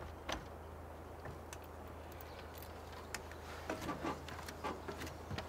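Faint clicks and knocks of a truck camper's rear door being opened and a person stepping out onto its metal folding steps, over a steady low hum.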